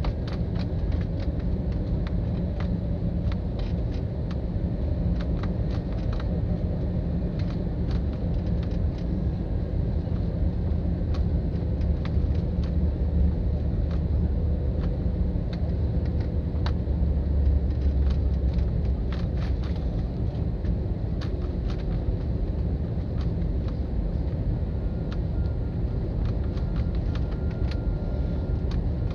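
Steady low rumble inside an airliner cabin during landing, the drone of the engines and airflow, with frequent small clicks and rattles.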